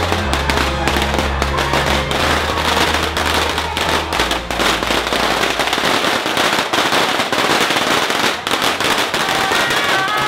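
A string of firecrackers going off in a rapid, continuous crackle of pops, mixed over music whose bass notes drop out about six seconds in.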